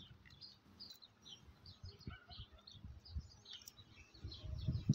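Small birds chirping repeatedly, faint and high, with a few soft low thumps.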